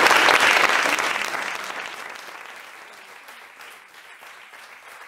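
Audience applauding, fading away over about three seconds to a few scattered claps.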